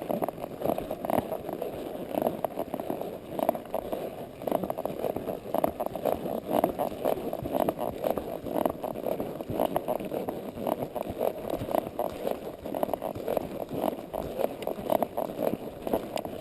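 Palomino Quarter Horse mare walking under saddle: a steady run of irregular hoof falls and rustling, with the rider's clothing and tack rubbing close against a chest-mounted camera.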